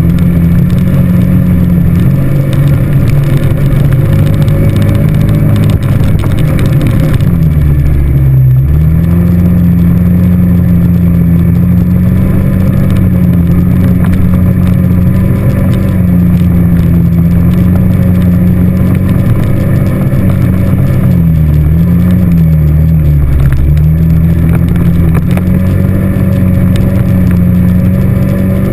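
ATV engine running steadily under way, heard close up from the handlebars, with engine speed dipping briefly about eight seconds in and wobbling down and up twice a little past twenty seconds.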